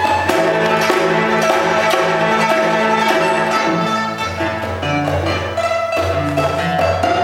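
Small Chinese ensemble of pipa, Chinese bamboo flute, cello and percussion playing a lively Xinjiang folk dance tune. Low cello notes sit under a repeating rhythmic figure and a held melody, with sharp plucked or struck strokes keeping the beat.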